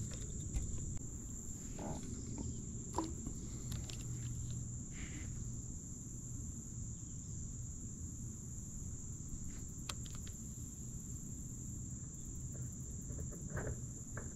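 A steady, high-pitched insect chorus, with a few faint clicks and knocks here and there.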